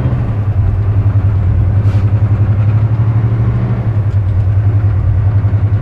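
Semi truck's diesel engine and road noise heard from inside the cab while driving: a steady low drone.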